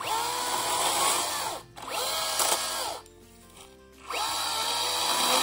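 Makita DUC405 36-volt cordless electric chainsaw cutting into a log in three bursts. Each time the motor whines up to speed, holds steady through the cut and winds down when the trigger is released; the third burst is still running at the end.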